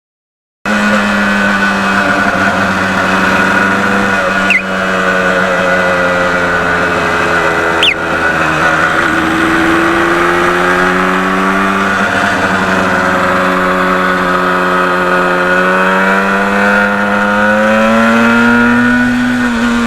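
1977 Yamaha RD400's two-stroke parallel-twin engine running while under way, a steady engine note that slowly sinks and then rises in pitch. Two brief clicks, each with a short dip in the engine sound, come about four and a half and eight seconds in.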